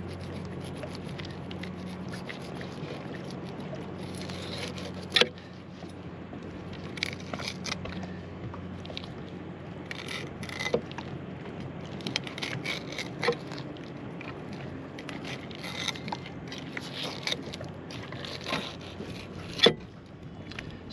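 Fillet knife cutting and scraping through a mojarra on a plastic fillet board: irregular scrapes and clicks, with a sharp knock about five seconds in and another near the end.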